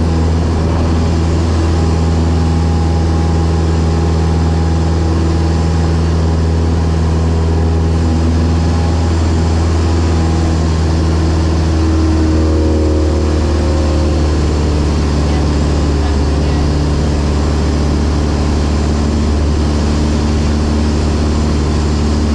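Single-engine light aircraft's engine and propeller droning steadily, heard inside the cabin in flight. The tone shifts slightly about halfway through.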